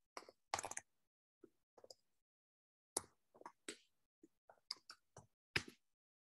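Faint, irregular clicks and taps of typing on a computer keyboard, about fifteen strokes in scattered groups.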